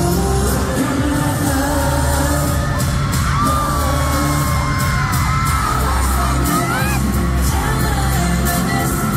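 Live pop concert sound: a loud song with a heavy bass beat and singing through the arena sound system, over a screaming crowd.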